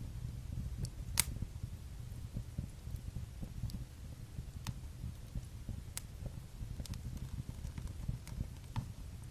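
Wood fire in a fireplace crackling: a steady low rumble with scattered sharp pops, the loudest about a second in.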